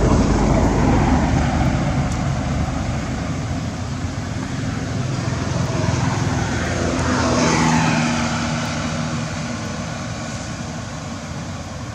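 Motor vehicles passing: one engine swelling near the start and another about seven and a half seconds in, its pitch falling as it goes by, then the noise fading.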